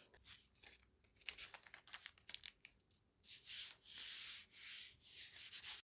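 Masking tape being pulled off the roll and torn into strips: a few light ticks, then several short ripping pulls of tape in the second half.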